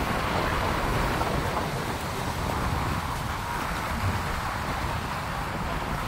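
Strong sea wind buffeting the microphone in an uneven low rumble, over the steady wash of small waves breaking on shoreline rocks.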